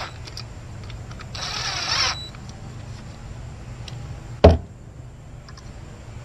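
A cordless ratchet whirs once, for under a second, about a second and a half in, getting louder as it runs an ignition coil bolt down onto the ignition module of a GM 3.8L V6. About four and a half seconds in there is a single sharp knock, the loudest sound, over a low steady hum.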